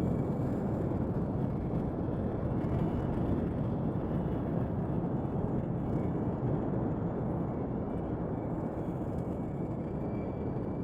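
Sci-fi alien-jungle ambience sound effect: a steady low rumbling drone with a few faint, thin high tones drifting above it.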